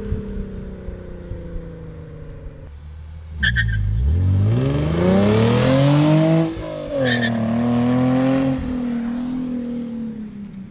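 Hyundai Genesis Coupe's 3.8 V6 through a CNT v3 cat-back with test pipes in place of the secondary cats, driven hard: the engine note sags for a few seconds, then rises steadily under acceleration for about three seconds, drops sharply at a gear change and pulls on. Two brief high chirps come near the start of the acceleration and at the gear change.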